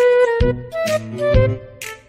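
Background music: a quick melody of short pitched notes with drum hits.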